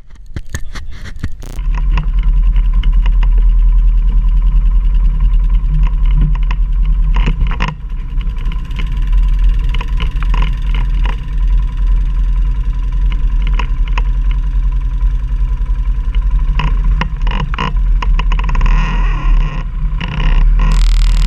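Quad (ATV) engine running under load on a steep climb, with frequent knocks and rattles over the rough ground. It grows louder about a second and a half in.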